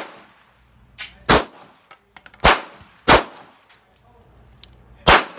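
Polymer80 PF940C, a Glock 19-pattern 9mm pistol, firing single shots at an unhurried pace: four loud shots between half a second and two seconds apart, with a quieter report just before the first of them.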